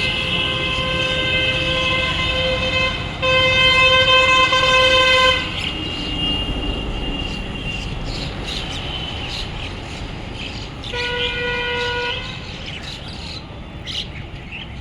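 A vehicle horn sounding a long steady blast over a low rumble, louder for its last couple of seconds and stopping about five seconds in, then a second, shorter blast about eleven seconds in. Short bird chirps come between and after the blasts.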